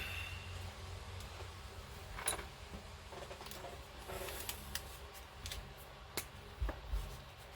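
Scrap plastic being handled on a workbench: several separate light clicks and taps, with a couple of soft low knocks near the end.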